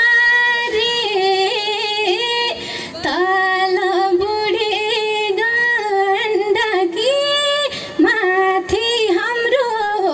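A woman singing a Nepali folk song into a microphone, holding long notes with wavering turns and slides between them, with a short break near three seconds in.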